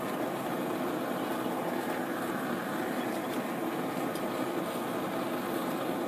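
Homemade forge's pipe burner running with a steady rushing noise that does not change.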